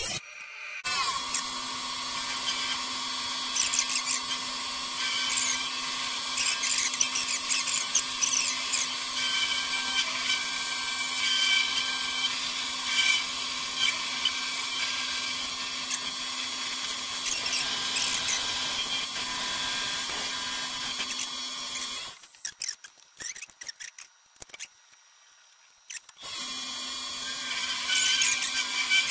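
An old milling machine runs with a steady motor hum while its cutter works into a steel plate, with scratchy, uneven cutting noise on top. The sound cuts out for about four seconds near the end, then starts again.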